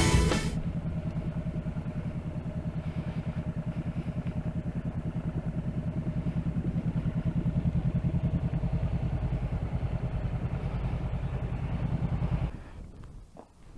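Motorcycle engine idling with a steady, even pulse, then stopping abruptly about a second before the end.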